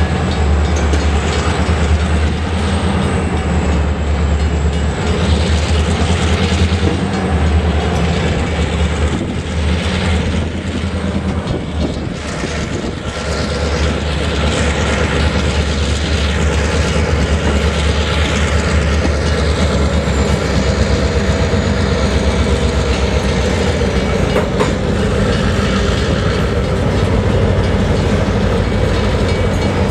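Two diesel road-switcher locomotives running as they move a cut of covered hopper cars, with a steady low engine rumble over the rolling noise of the cars on the rails. The sound dips briefly about twelve seconds in.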